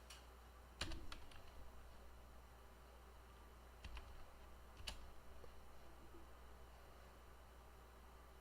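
Near silence over a steady low hum, broken by a few faint computer keyboard clicks: a small cluster about a second in, then single clicks about four and five seconds in.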